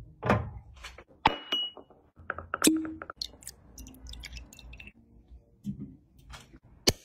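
Crystal decanter's glass stopper clinking against the neck as it is lifted out, one clink ringing briefly, then liquor poured into a glass tumbler. A sharp click near the end.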